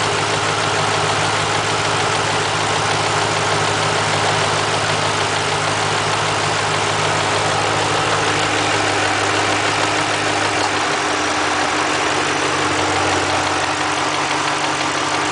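2005 Mustang GT's 4.6-litre three-valve V8 idling with a clunking noise from the cam phasers, which the owner concludes is normal for this engine and not a fault. The idle note shifts a little lower about eleven seconds in.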